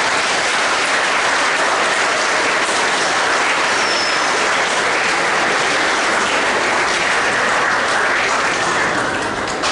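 Hall full of students applauding steadily, the clapping easing off near the end. A brief high whistle-like tone sounds about four seconds in.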